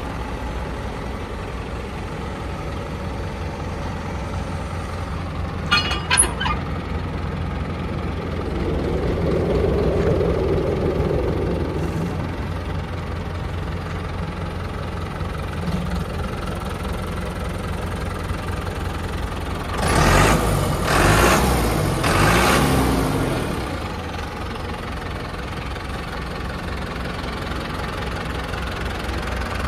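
2003 New Holland TS100 tractor's diesel engine idling steadily. A brief squeak comes about six seconds in, and a louder burst of noise lasting about three seconds comes about twenty seconds in.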